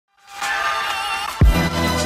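Electronic intro music: sustained synth chords with a wavering lead line fade in, then a heavy bass drum beat comes in about one and a half seconds in.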